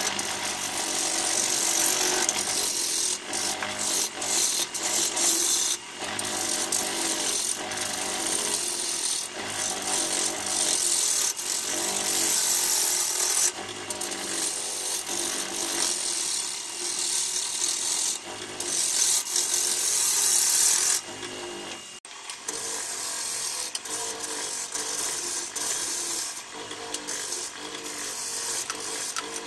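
A bowl gouge cutting the outside of a large jacaranda bowl blank spinning on a wood lathe: a rough scraping hiss that swells and drops as the tool bites and eases off.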